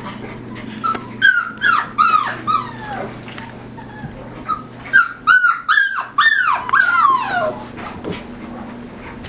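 Collie puppies whining and yipping: a run of short, high cries that each drop in pitch, in two bouts, about a second in and again about five seconds in.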